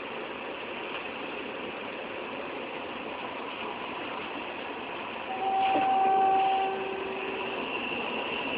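Steady running noise of a train, with a horn sounding for about two seconds just past the middle, the loudest thing here; its higher note stops before the lower one.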